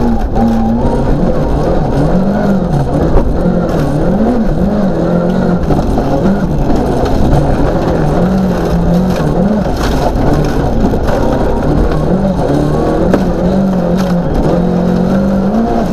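Volvo 940 rally car's engine heard from inside the caged cabin, its pitch rising and falling again and again with throttle and gear changes, over the continuous rumble of tyres on gravel with occasional stone clicks.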